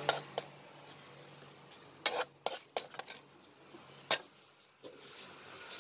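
Steel ladle clinking and scraping against an enamel plate and a steel pot while dishing up chicken karahi: scattered sharp clinks, the loudest about four seconds in.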